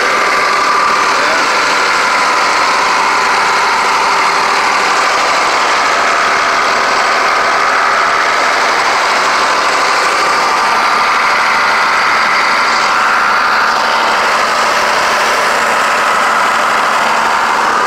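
Farm tractor's diesel engine running steadily at a constant speed, with a steady whine over the engine noise.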